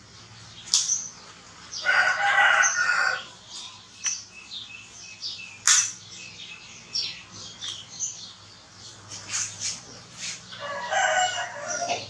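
Two long animal calls about eight seconds apart, each more than a second long and held at a steady pitch, with short sharp high squeaks scattered between them.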